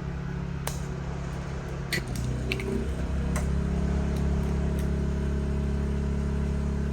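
An engine running steadily with a low hum that shifts and gets a little louder about two seconds in, with a few light clicks and knocks over it.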